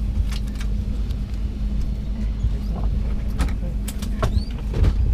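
Steady low hum of an airliner cabin's ventilation and ground power before departure, with scattered light clicks and knocks and a brief squeak about four seconds in.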